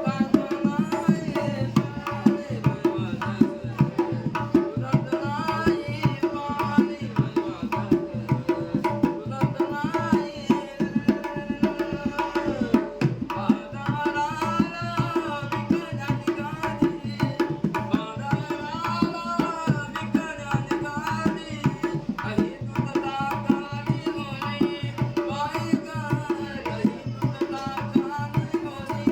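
A man singing a devotional song, accompanied by fast, steady rhythmic strokes on a dholki hand drum.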